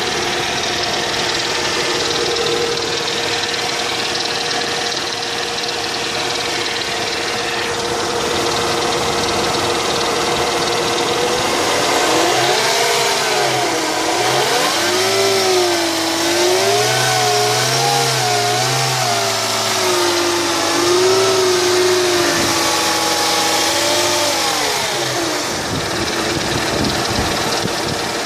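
Mercedes-Benz W210 E240 V6 engine running with a knock and a howl that the owner cannot explain. Through the middle the howling tone rises and falls several times with the revs, then settles back to a steady idle.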